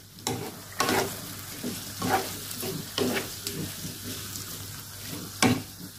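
Shrimp and green bean stir-fry sizzling in its sauce in a nonstick wok while the liquid reduces. A spatula scrapes and knocks against the pan at irregular moments as it is stirred, most sharply near the end.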